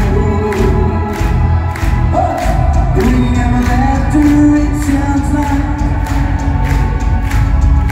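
Live rock band playing loud through a club PA: a male singer holds long sung notes over a steady drum beat and heavy bass.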